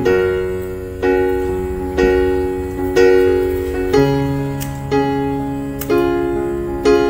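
Background music: slow chords struck about once a second, each one fading before the next.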